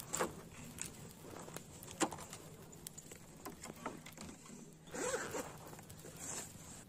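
Zipper of a fabric pencil case being pulled open in a short rasping run about five seconds in, with another brief pull just after. A few sharp clicks of handling come before it.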